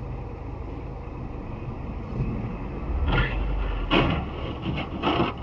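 Steady road and engine rumble inside a moving car. In the second half come three harsh, noisy crunches about a second apart: a semi-truck sideswiping a taxi, its metal body panels scraping and crumpling as they are squeezed.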